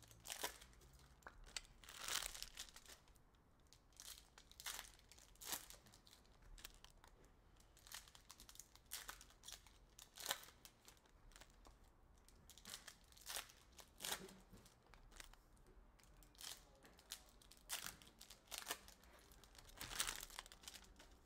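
Foil wrappers of hockey card packs being torn open and crinkled, in short irregular rustles about once a second.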